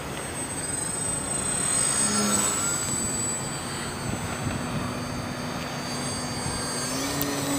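Battery-powered RC model airplane in flight: its motor and propeller make a thin high whine that drifts in pitch over a steady noisy rush, and a lower tone rises near the end.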